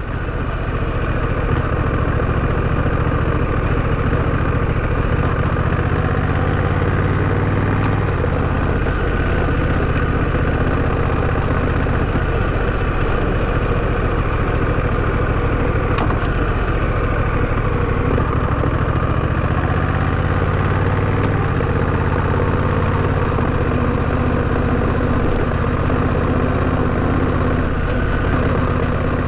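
Honda Rebel 1100's parallel-twin engine running steadily at low revs, with slight shifts in pitch about 7 and 20 seconds in.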